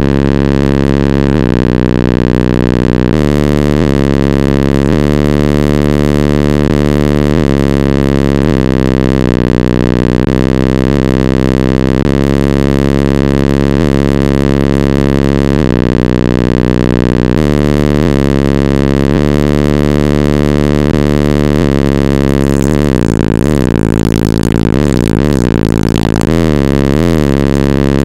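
Four Vibe BlackDeath 15-inch car-audio subwoofers in a van playing very loud, deep, sustained bass notes. Over the last several seconds the bass wobbles up and down in pitch.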